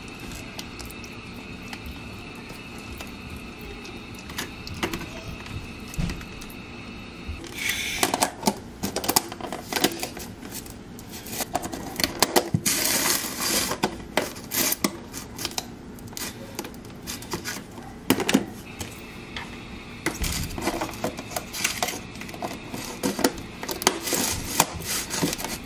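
Plastic food-storage containers, lids and a plastic spatula handled on a countertop: leftovers scooped out, lids set down and pressed on, giving a run of sharp clicks, knocks and scraping. It is fairly quiet for the first several seconds, and the clatter starts about eight seconds in.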